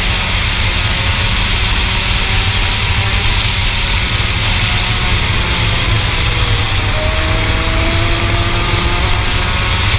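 Rotax Max 125 FR kart engine, a single-cylinder two-stroke, running hard at high revs as heard from on board the kart, its pitch climbing a little near the end.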